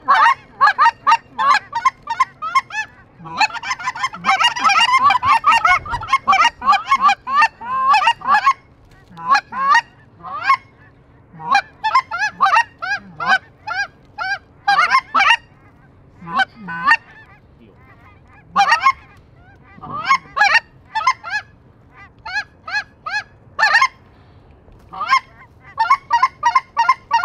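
Specklebelly goose calling: quick, high yelps and yodelling honks in repeated bursts, densest from about four to eight seconds in, as a flock is worked in toward decoys.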